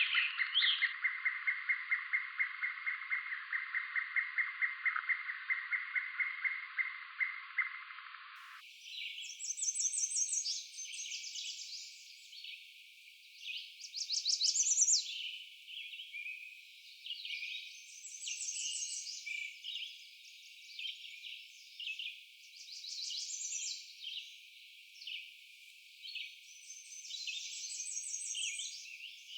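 American redstart singing, a high song of quick repeated notes given again every few seconds. Before it, for about the first eight seconds, a different lower, fast, even trill.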